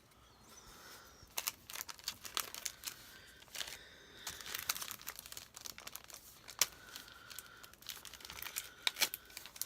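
Sticker sheets and their packaging being handled, crinkling and rustling with many sharp, irregular crackles.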